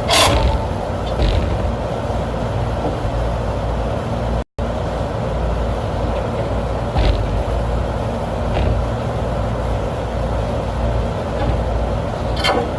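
Steady low rumble and hiss of outdoor noise, with a few light knocks as a replacement condenser fan motor is worked into place in a rooftop unit. The sound cuts out briefly about a third of the way in.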